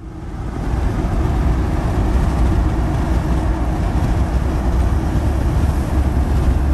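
Steady road noise of a Land Rover Discovery 4 on the move, heard from inside the cabin: a low, even rumble that fades in over the first second.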